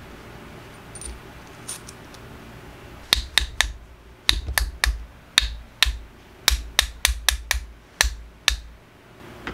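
Soft-faced mallet tapping a steel shaft into a bearing in an aluminium housing: about fifteen sharp taps at uneven intervals, starting about three seconds in.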